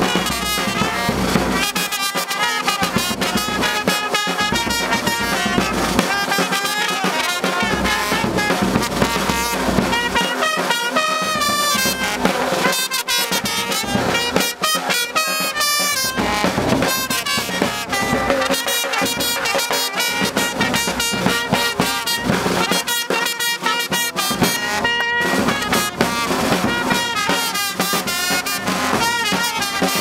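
Live brass band playing an upbeat tune: trumpets, a trombone and a low upright horn play the melody and harmony over a snare drum, without pause.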